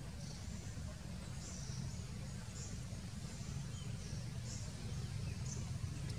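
Outdoor background with a steady low rumble and short, high chirps repeating about once or twice a second.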